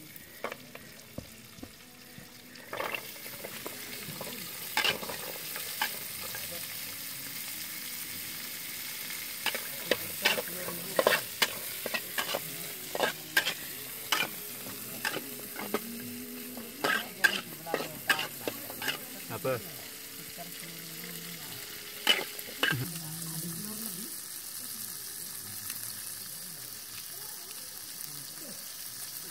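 Carrots and green beans stir-frying in a metal wok: a steady sizzle, with a metal ladle clanking and scraping against the pan over and over, busiest in the middle stretch.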